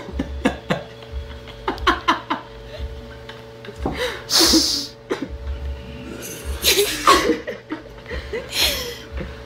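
People laughing in short breathy bursts, several times, with a hissy laugh-exhale about four seconds in, over a faint steady hum.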